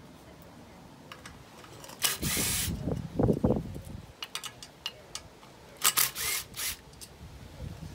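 Cordless power driver spinning 10 mm bolts out of an outboard intake manifold in two short runs a few seconds apart, with some clatter of metal in between.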